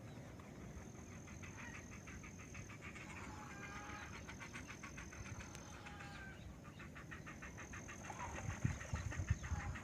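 Wild birds calling, with a fast rattling trill that stops and starts again and a thin, steady high-pitched whine behind it. A few low thumps come near the end.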